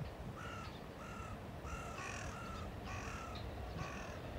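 Crow cawing, about six caws in a row, two of them overlapping near the middle.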